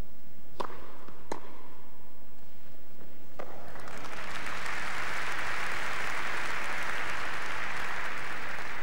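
Tennis ball struck by rackets three times in a short rally, then from about three and a half seconds in, the crowd applauds the end of the point.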